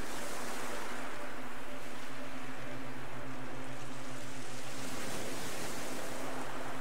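A steady rushing noise, like surf, that swells twice, with a faint low hum underneath.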